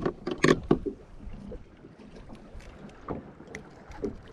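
Handling noises: a quick run of sharp knocks and clicks in the first second, then scattered faint clicks.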